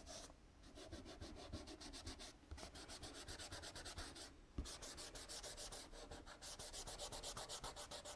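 A hand rubbing soft pastel into paper, blending the colour band by band: faint, quick rhythmic rubbing strokes, several a second, with a light tap about halfway through.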